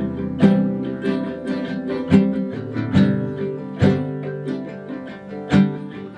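Acoustic guitar playing: chords plucked or strummed about every second and left to ring out and fade.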